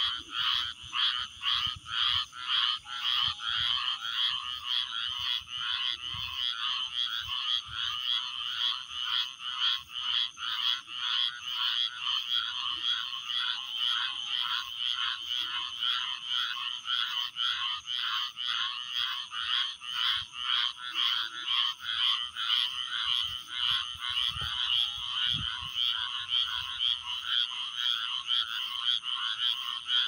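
A chorus of frogs chirping at night, many short chirps overlapping in a fast, even rhythm of about two or three a second.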